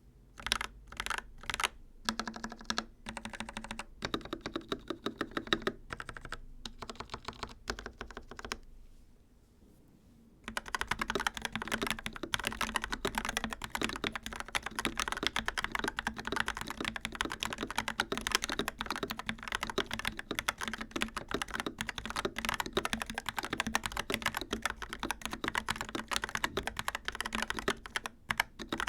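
Dark Project KD87A mechanical keyboard with G3ms Sapphire switches being typed on. Single, spaced keystrokes for the first eight seconds or so, a pause of about two seconds, then fast continuous typing to the end.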